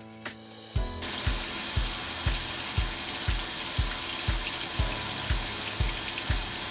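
Kellenberger RS-M 175 cylindrical grinder running with its coolant flood spraying over the grinding wheel and workpiece: a loud, steady hiss that starts suddenly about a second in. Background music with a steady beat of about two kicks a second runs underneath.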